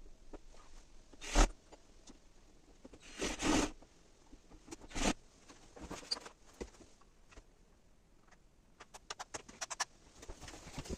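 Scattered handling noises: a sharp knock about a second and a half in, a rustle, another knock, then a quick run of light clicks near the end.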